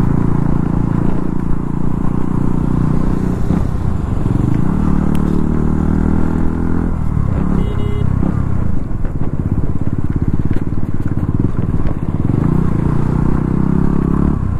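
200 cc single-cylinder motorcycle engine running while riding on a rough road. The engine note eases off about seven seconds in, then picks back up.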